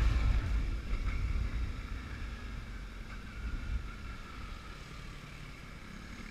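Suzuki V-Strom 650's V-twin engine running while riding, heard as a low rumble mixed with wind noise on the microphone, getting quieter over the first few seconds.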